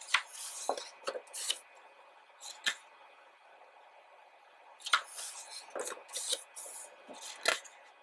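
Pages of a large photobook being turned by hand: short paper swishes and flaps, in a cluster near the start, a single one a little later, and another cluster from about five seconds in.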